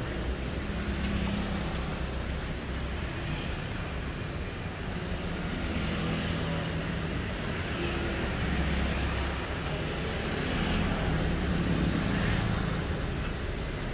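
Steady background rumble and hiss, a little louder toward the end, with no distinct clicks or knocks.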